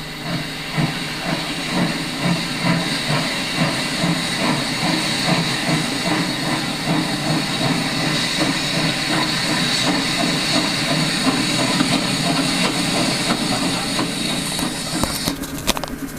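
Steam locomotive sound: a steady hiss under rhythmic chuffing at about three beats a second, with a few sharp clicks near the end.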